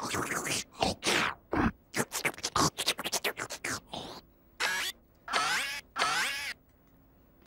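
Cartoon vacuum-cleaner character's vocal sound effects: a quick run of short choppy noises, then three longer wavering, warbling calls from about halfway through.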